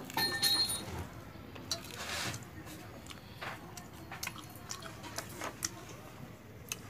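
Eating by hand from steel bowls of pakhal (rice soaked in water) and fried fish: fingers pulling at the fish and working the wet rice, making small wet squishes and drips, with scattered clicks and taps and a short ringing clink near the start.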